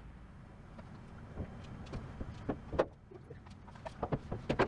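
Hood of a Dodge D100 pickup being lowered and pressed shut: a few light knocks and clicks from the hood and its hinges and latch, the loudest about three seconds in and several more near the end.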